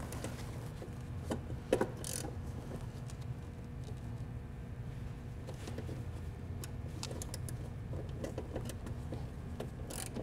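Scattered light metallic clicks and clinks of hand tools loosening the bolts of a fuel filter mounting bracket, over a steady low hum.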